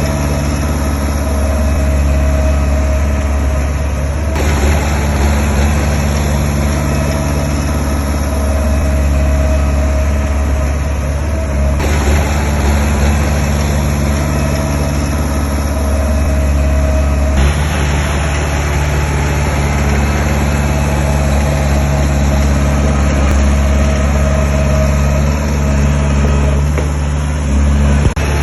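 Heavy construction-machine diesel engine running steadily with a deep continuous drone. Its tone shifts abruptly a few times.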